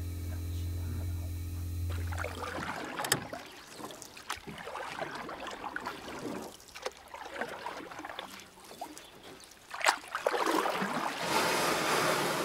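A steady electrical hum that stops about two and a half seconds in. It is followed by irregular clicks and knocks over a rushing noise that grows louder near the end.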